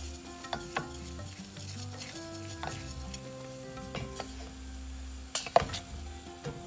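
Wooden spoon stirring jaggery syrup as it bubbles in a stainless steel saucepan, being boiled down to drive off some of its water. The spoon scrapes and knocks against the pan now and then, most sharply a little after five seconds in.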